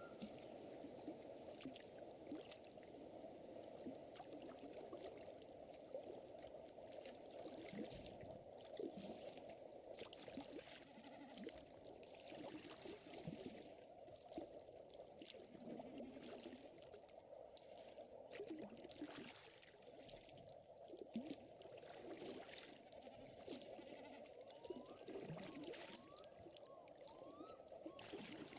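Faint nature ambience: a fire crackling with scattered sharp pops over a steady wash of lake water. A few short rising chirps come near the start and again near the end.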